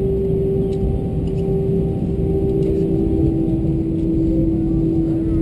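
Cabin noise of an Airbus A319-114 taxiing, heard from a window seat over the wing: a low rumble with a steady engine hum that drops slightly in pitch about two seconds in.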